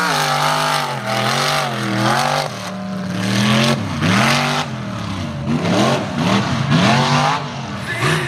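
Mud racing truck's engine revving hard as it drives through the mud, its pitch climbing and dropping over and over. The revs swing up and down more quickly in the second half.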